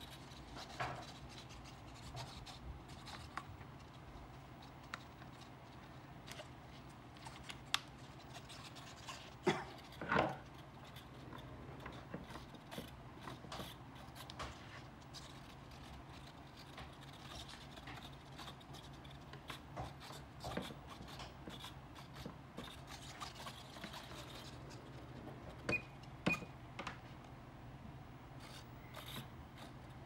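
Hands handling an EPP foam RC airplane: foam and plastic rubbing, with scattered light clicks and knocks, the loudest in a cluster about ten seconds in and again around twenty-six seconds in.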